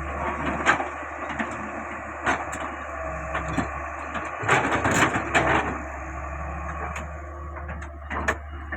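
Caterpillar 385C hydraulic excavator working: a steady engine hum under a series of sharp cracks and knocks, with a cluster of them about halfway through.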